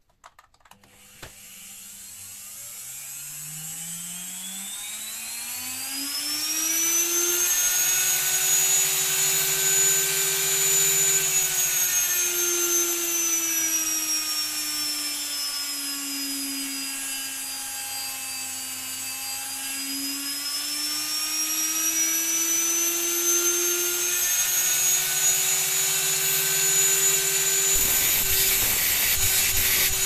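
Washing-machine brushed commutator motor switched on through a power-tool speed regulator: it spins up with a rising whine over the first six seconds or so and runs at speed. Around the middle the whine slowly drops in pitch as the regulator knob is turned down, then rises again and holds high to the end.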